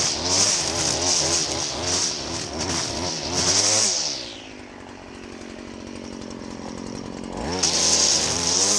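Two-stroke petrol string trimmer cutting long grass, its engine revving up and down with the hiss of the line through the grass. About four seconds in it drops back to idle, then revs up and starts cutting again near the end.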